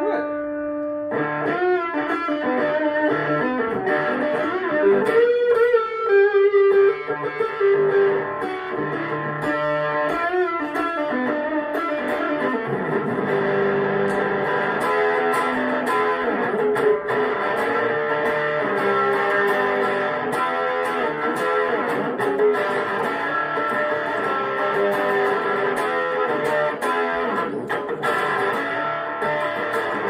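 Electric guitar played through a small amplifier, retuned up to standard E: a continuous run of picked notes and ringing chords, with a few bent, wavering notes about five to seven seconds in.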